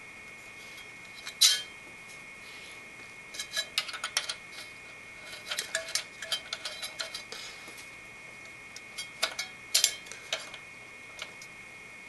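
Light metallic clicks and clinks in scattered clusters as the Enermax ETS-T40-VD CPU cooler's mounting hardware (the center bar and its retaining nuts on the crossbar bolts) is fitted by hand, over a faint steady high-pitched tone.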